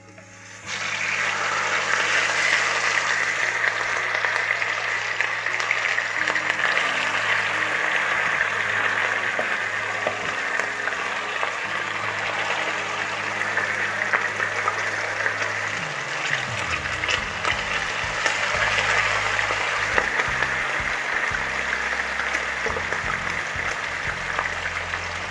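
Chicken pieces frying in hot oil: a loud, steady sizzle that starts suddenly about a second in as the chicken goes into the pot.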